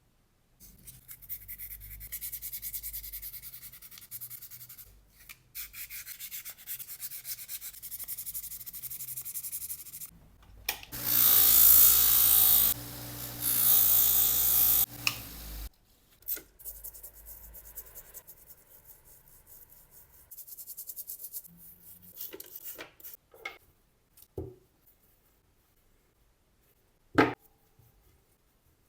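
Fast, repeated abrasive rubbing strokes as an old knife is worked by hand during restoration. Midway there is a louder stretch of about five seconds with a steady hum, and the rubbing resumes more quietly after it. Two sharp knocks come near the end.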